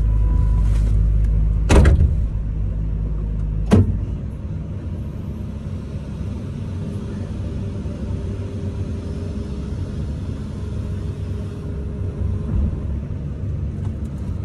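Komatsu 210 excavator's diesel engine running, heard from inside the cab, with two sharp knocks about two and four seconds in. After the second knock the deepest rumble eases, and a faint steady whine comes in midway as the boom moves.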